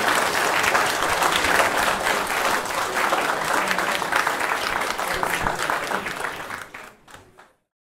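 Audience applauding, dense clapping that fades out about seven seconds in and then cuts to silence.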